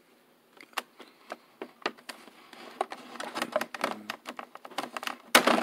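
Clear plastic packaging crackling and crinkling as an action figure is worked out of its plastic tray: a run of sharp irregular crackles that grows denser after about two seconds, loudest just before the end.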